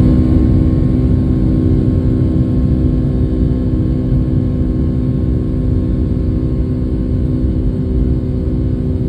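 Boeing 757-200's Pratt & Whitney PW2000 turbofan running at taxi thrust, heard from inside the cabin: a steady hum with several held tones over a low rumble, easing slightly in level.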